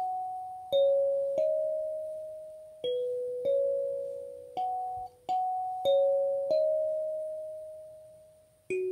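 Wooden kalimba played with the thumbs: a slow melody of single plucked metal tines, about ten notes, each ringing and fading before the next.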